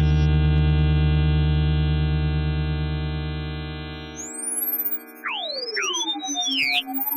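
Electronic background music: a held synthesizer chord that slowly fades, its bass cutting off about four seconds in, followed by pure tones sweeping up and down in looping glides.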